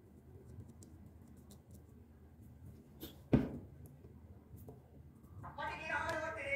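A single sharp knock of a plastic glue bottle being set down on a wooden workbench, about three seconds in. Around it are faint small clicks of hands working a glued wooden patch on the bat.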